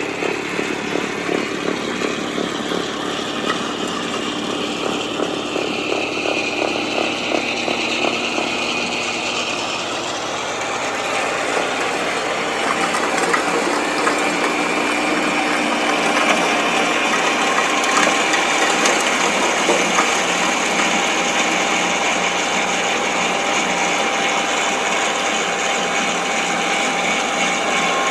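Kubota compact tractor's three-cylinder diesel engine running with the PTO-driven front snowblower's auger and impeller spinning, a steady mechanical clatter and whir. It gets somewhat louder about twelve seconds in.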